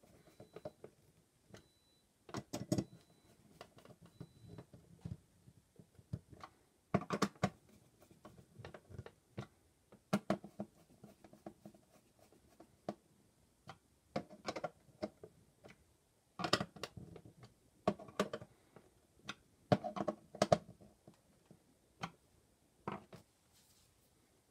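Hands handling the black metal bottom case of a Roland PR-100 sequencer: irregular bursts of knocks, taps and scraping against the panel every few seconds, with quiet pauses between.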